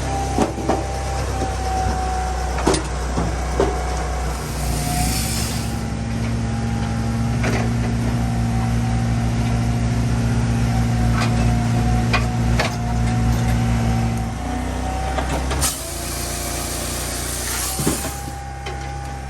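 Dyna firewood processor running: its engine and hydraulics work under load for about ten seconds, the note heavier and throbbing, over a steady whine. Sharp knocks of wood come now and then, with a hiss twice.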